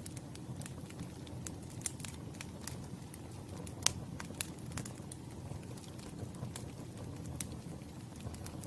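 Wood campfire burning: a steady low rumble with frequent irregular sharp pops and snaps of burning wood, one louder pop about four seconds in.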